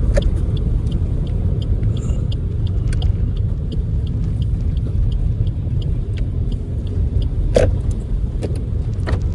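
Car cabin noise while driving: a steady low road and engine rumble, with a faint regular ticking about two or three times a second and a couple of brief sharp clicks.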